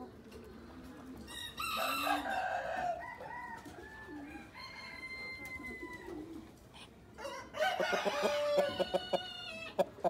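Chickens crowing and clucking: a call about two seconds in, a long held call around the middle, then a rapid run of loud clucks over the last two seconds.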